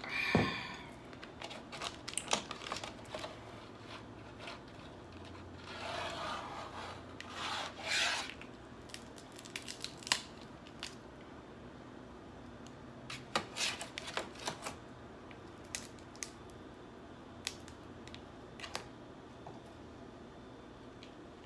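Snow crab legs being cracked and snapped apart by hand: scattered sharp shell cracks and crackles, with a couple of longer rasping sounds about six and eight seconds in.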